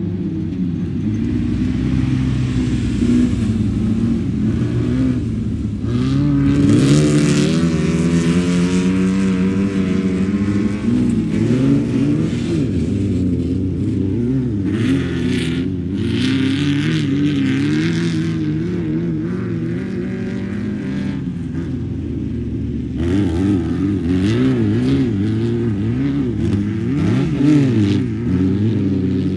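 Class 11 stock Volkswagen Beetle race car's air-cooled flat-four engine running loud and revving, its pitch climbing and falling repeatedly, with a sharp climb about seven seconds in and repeated up-and-down revs near the end.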